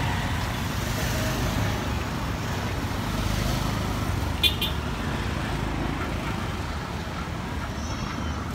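Steady rumble of passing road traffic, with one brief sharp click about four and a half seconds in.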